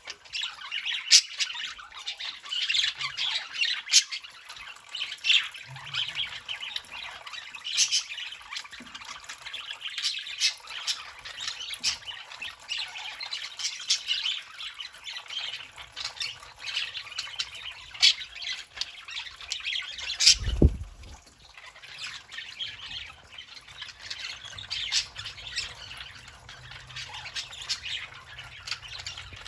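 Budgerigars chattering and squawking without a break, with sharp chirps scattered through. About two-thirds of the way in there is one loud, dull thump.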